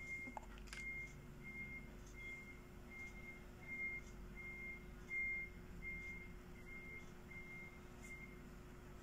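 A faint, high electronic beep repeating about every 0.7 seconds, over a low steady hum, with a few soft clicks from a small plastic toy accessory being handled.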